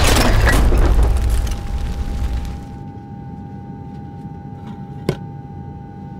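Explosion sound effect: a loud blast that rumbles and dies away over about two and a half seconds. About five seconds in, a single sharp click.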